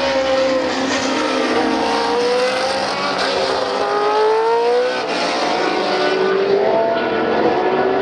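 Ford Cosworth DFV 3-litre V8 of a John Player Special Lotus Formula 1 car running on track, passing and pulling away into a corner. The engine note sags as the driver lifts off and climbs again under throttle, twice.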